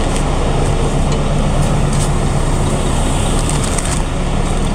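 Engine of a construction vehicle running steadily, with an even low hum.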